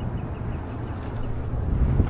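A low, steady outdoor rumble, with a faint series of short high ticks right at the start.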